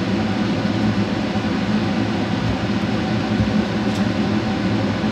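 Steady whirring hum of an electric fan or appliance motor, running evenly with a constant low drone.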